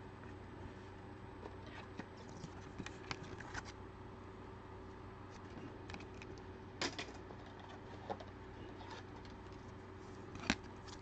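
Trading cards being handled and slid against one another: faint scattered clicks and rustles, with a sharper tap about seven seconds in and another near the end.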